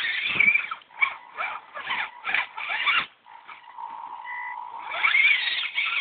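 Electric motor and gears of a radio-controlled scale rock crawler whining in a string of short throttle bursts as it climbs, then a steadier whine that swells near the end.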